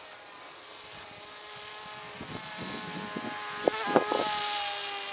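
Small electric motor and propeller of a Wild Hawk RC glider whining overhead, growing louder as the plane approaches, its pitch dipping slightly as it passes about four seconds in. Wind buffets the microphone with a few sharp thumps around the middle.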